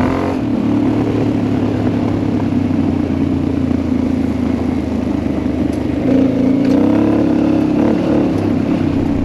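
Honda Transalp 700's V-twin engine, fitted with a de-cat header, running under load on a gravel road. It pulls harder and rises in pitch about six seconds in, with faint ticks of gravel.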